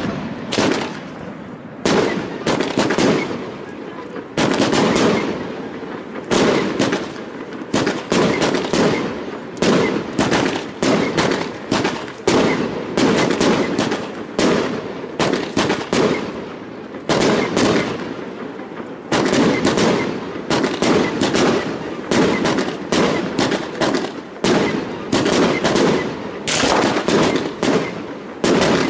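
Fireworks display: aerial shells bursting in a rapid barrage of sharp bangs and crackle, several reports a second, with a couple of short lulls.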